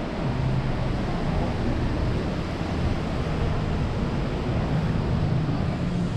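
Steady wind rushing over the microphone on a cruise ship's open pool deck, with a low steady hum beneath it.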